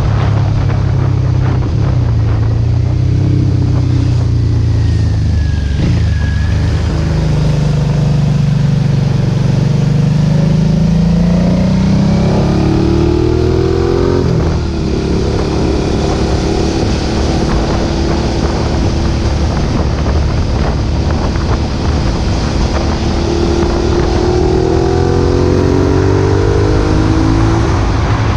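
2008 Suzuki SV650's V-twin running through a Roadsitalia aftermarket exhaust with the dB-killer fitted, ridden on the road. Its revs rise and fall several times and hold steady for a stretch in the middle, over a constant rush of wind and road noise.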